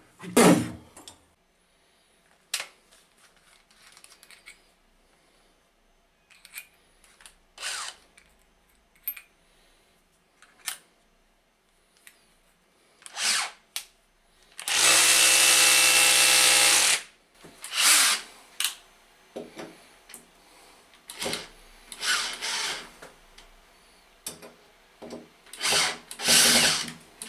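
Cordless drill-driver with a screwdriver bit, run in short bursts and once steadily for about two seconds near the middle, turning the screws of a metal wall bracket. There are a few light handling knocks in the first half.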